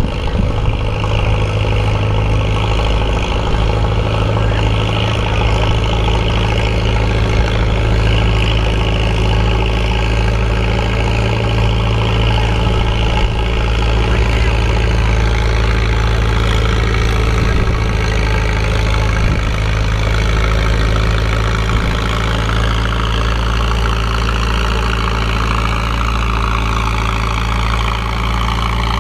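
Antique tractor engine idling steadily, an even low hum with no change in speed.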